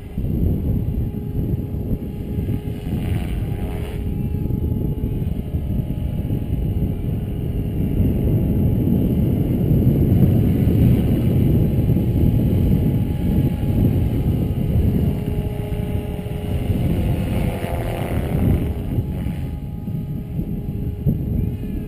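SAB Goblin 500 electric RC helicopter in flight, its motor and rotor whine sweeping up and then down in pitch as it makes a pass a few seconds in and another near the end. A heavy, even low rumble of wind on the microphone is loudest throughout.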